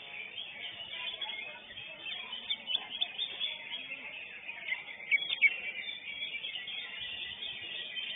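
Greater green leafbird (cucak hijau) singing a fast, unbroken run of chirps and whistled notes, with a few louder sharp notes about five seconds in.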